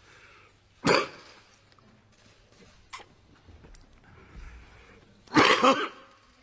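A man coughing: one sharp cough about a second in, then a harder run of several coughs together near the end.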